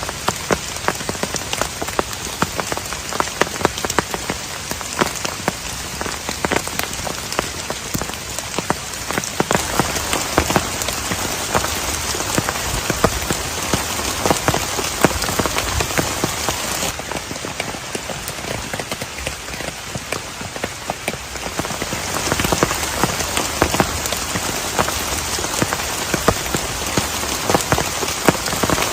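Heavy rain with many individual drops striking close by. It eases slightly about two-thirds of the way through, then comes down harder again.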